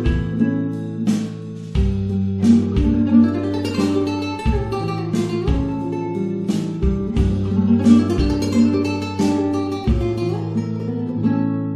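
Background music: an acoustic guitar track of plucked and strummed notes over a sustained bass line.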